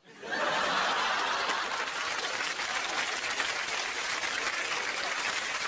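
Studio audience applauding: a dense crowd of clapping hands breaks out suddenly and holds steady.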